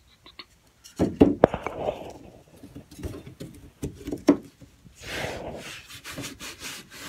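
A hand-cut OSB plug being fitted into a tie-down hole in a wooden van subfloor: a few sharp wooden knocks about a second in and again around four seconds, then rubbing and scraping as a hand presses and slides over the plug to seat it flush.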